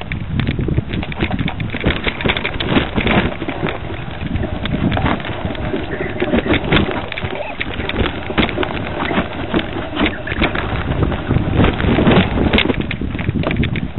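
Mountain bike riding fast down a dirt forest trail, heard from a camera carried on the ride: a constant clatter of knocks and rattles as the bike goes over bumps and roots, over a steady low rumble of tyres and wind on the microphone.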